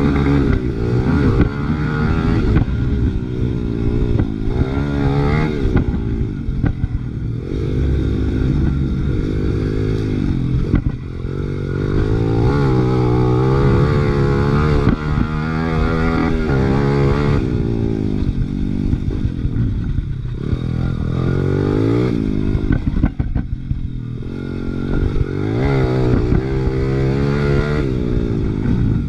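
Big-bore Honda XR100R single-cylinder four-stroke engine revving hard while being ridden, its pitch climbing and dropping back over and over as it runs up through the gears.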